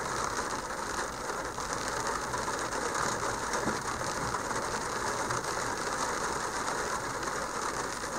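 Steady, even road and engine noise inside a vehicle cab.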